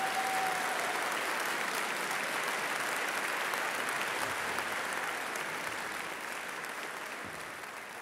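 Concert hall audience applauding steadily in dense, even clapping that slowly fades out near the end.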